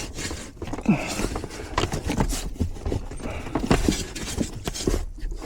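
Irregular metal knocking, clanking and scraping from working a blower motor loose inside an air handler's sheet-metal cabinet.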